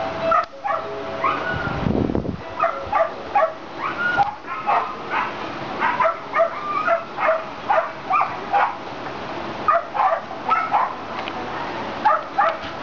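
Several dogs barking repeatedly, about two to three short barks a second, at different pitches that sometimes overlap.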